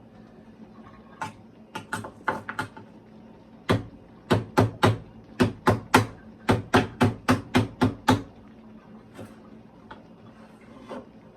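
A run of sharp knocks on a hard kitchen surface, about a dozen at roughly three a second, with a few scattered single knocks before them.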